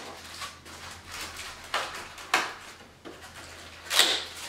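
A fiberglass fender flare being pulled out of a long cardboard shipping box: fiberglass and cardboard scraping and rustling in several separate strokes, the loudest about four seconds in.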